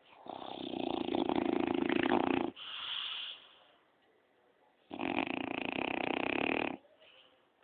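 A pet snoring loudly: two long snores of about two seconds each, the first followed by a shorter, softer, higher-pitched breath.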